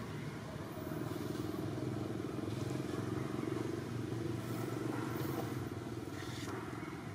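An engine running steadily, a little louder in the middle.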